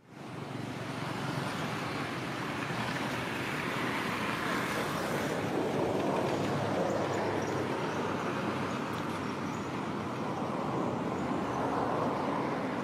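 Steady rushing background noise that fades in over the first second and then holds level, with no distinct events in it.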